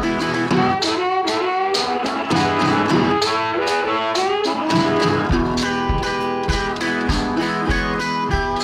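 Background music: a country-style acoustic guitar tune with a steady beat and fiddle.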